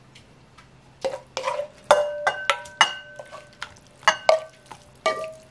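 A stir-fry being scraped out of a stainless steel pan into a ceramic bowl with a wooden spatula: a series of knocks and clinks, each ringing briefly, starting about a second in.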